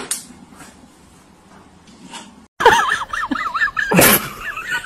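A plastic bottle is set down on a shelf with a sharp knock. After a cut comes a loud, high, fast-wavering squeal, and about four seconds in there is a loud clang from a steel pet bowl.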